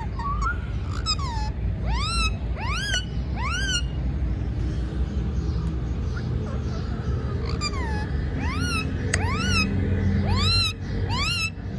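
About ten short, meow-like animal calls, each rising then falling in pitch, in two runs: five in the first four seconds, then, after a pause, five more in quick succession near the end.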